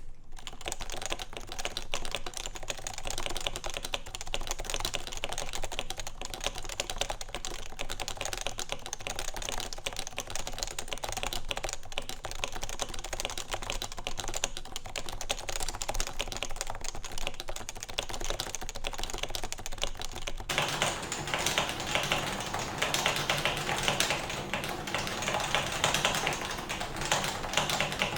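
Continuous typing on a Topre keyboard: Realforce 88UK electrostatic-capacitive switches lubed with 205g0, under Realforce keycaps, in a stainless-steel-plated case. About twenty seconds in, the sound turns abruptly brighter.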